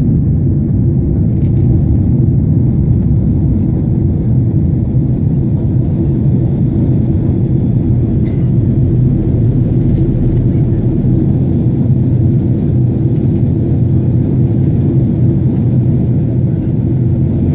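Steady low rumble of a jet airliner's engines and rushing air, heard from inside the cabin.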